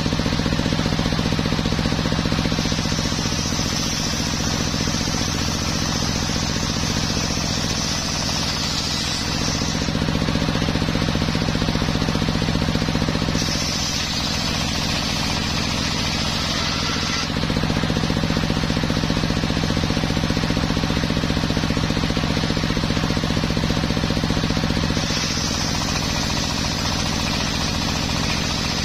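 Large circular sawmill blade ripping teak boards, three cuts in turn, each adding a high hissing whine over the saw's steady drive hum. The hum weakens slightly while the blade is in the wood.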